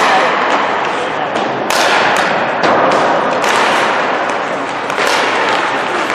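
Ice hockey rink sounds: a steady hiss, with several sharp knocks and thuds as sticks and pucks strike the ice, the boards and the net.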